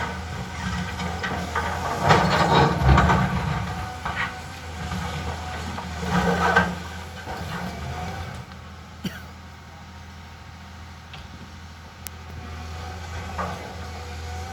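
Caterpillar excavator running, a steady low engine hum with louder noisy bursts about two to three seconds in and again about six seconds in.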